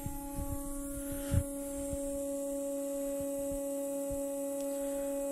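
Steady electric hum from a BMW K100 switched on with the ignition, typical of its electric fuel pump running, with a few light knocks, one a little louder about a second and a half in.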